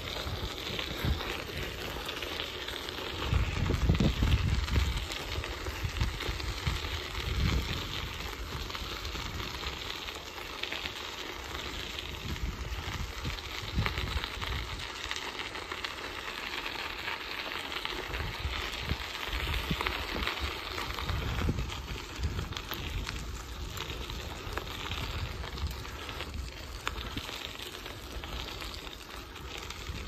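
Bicycle tyres rolling over a gravel path, a steady crackling hiss, with wind buffeting the microphone in low rumbling gusts, the strongest about four seconds in.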